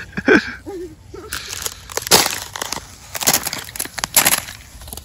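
Footsteps crunching over rough, wet ground: four heavy steps, about a second apart.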